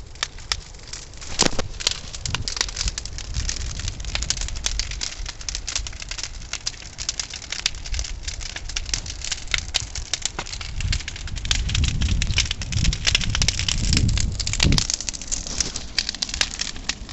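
Large bonfire of scrap lumber and wall paneling burning hard, crackling and popping continuously, with a low rumble that grows louder in the second half.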